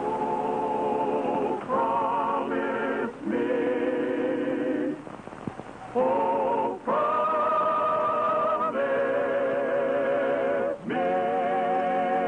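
Choir singing slow, held chords with a wavering vibrato as the show's closing theme music, in long sustained notes broken by short breaths, with a longer pause about five seconds in.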